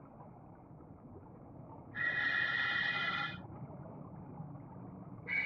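Scuba diver breathing through a regulator underwater: a hissing breath with a steady tone about two seconds in, lasting just over a second, and another starting near the end, over a faint low underwater background.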